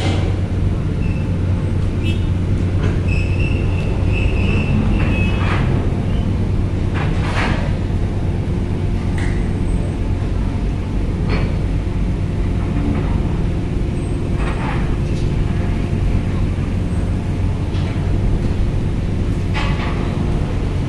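A docked ferry unloading vehicles: a steady low diesel drone from the ship and from the truck and car driving off it down the steel ramp, with a few sharp clanks as the vehicles cross the ramp plates.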